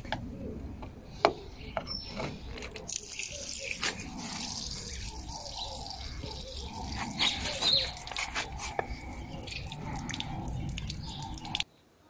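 A drain plug on a car's underside is worked loose with a few sharp clicks. Fluid then pours out in a steady stream and splashes onto brick paving. The pouring cuts off abruptly near the end.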